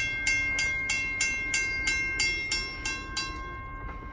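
Railroad crossing bell ringing, about three strikes a second, over a low rumble. The strikes stop about three and a half seconds in and the bell's tone keeps ringing briefly.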